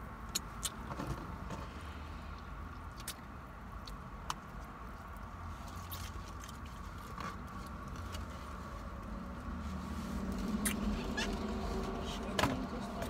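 Someone eating fries and wings out of a foam takeout box: scattered chewing, small clicks and taps of food and container, over a low steady hum in a car's cabin.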